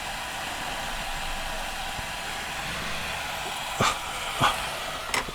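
Steady background hiss, with three short clicks or knocks in the last second and a half.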